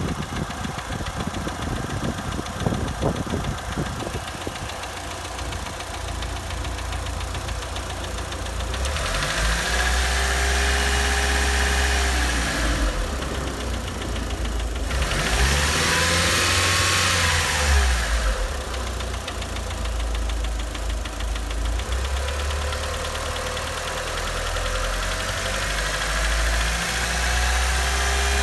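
Mitsubishi Lancer Evolution VII's turbocharged 4G63 inline-four running with an abnormal engine noise. Its pitch rises and falls twice in the middle as the engine is revved.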